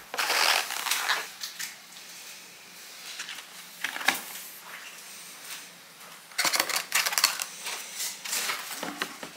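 Clattering and clicking of small hard objects being handled, with a single sharp click about four seconds in and a denser run of clicks in the last few seconds.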